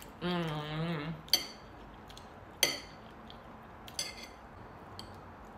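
A short hummed "mmm" with wavering pitch in the first second, then cutlery clinking sharply against a plate three times, over a second apart.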